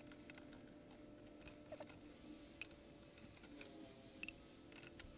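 Near silence with faint, scattered light clicks and ticks.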